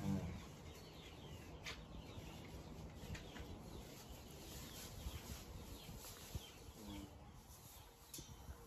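Faint bird chirping throughout, made of many short high chirps, with a few light clicks and a brief low sound right at the start.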